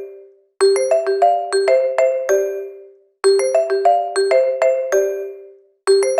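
Phone ringtone: a short melody of about eight quick chiming notes that ring and fade, looping about every two and a half seconds with a brief silent gap between repeats.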